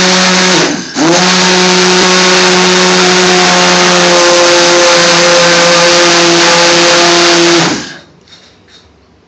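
Hand-held stick blender running at full speed in a bowl of onion base gravy, puréeing it. Its motor pitch sags and cuts out for a moment about a second in, then it spins up again and runs steadily until it is switched off near the end.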